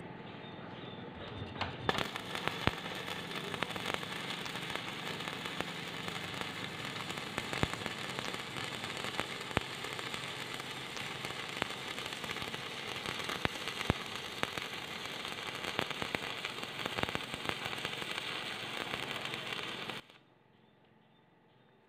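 Stick (shielded metal arc) welding arc burning on a steel plate as a zigzag weave bead is run: a steady hiss with frequent sharp pops. The arc cuts off abruptly near the end when the electrode is lifted.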